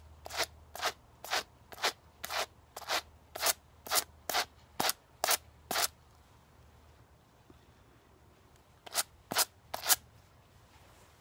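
Two wire pet brushes raked through a clump of dog hair, carding the fibres straight: quick scratchy strokes about two a second for some six seconds, a pause of about three seconds, then three more strokes.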